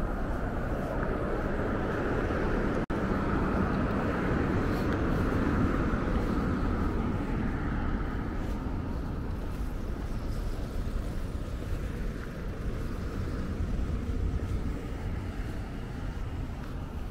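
Road traffic passing on a city street, a vehicle swelling to its loudest about five or six seconds in and then fading. The audio cuts out for an instant about three seconds in.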